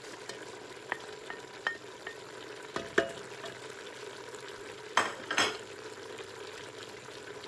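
Seasoned beef sizzling in an aluminium pressure-cooker pot, with a wooden spoon stirring in chopped vegetables. The spoon knocks against the pot a few times, loudest about three seconds in, and scrapes twice around five seconds in.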